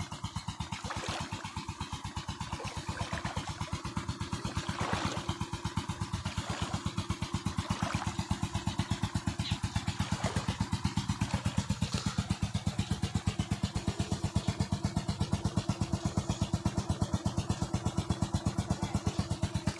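Engine of an irrigation pump running steadily with a fast, even thudding, growing louder over the first half.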